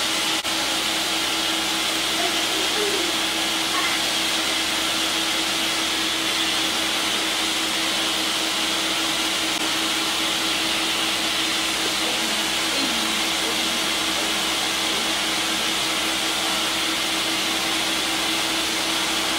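Countertop blender running steadily at high speed, puréeing cooked red chiles into a smooth salsa on its third pass to get rid of chunks.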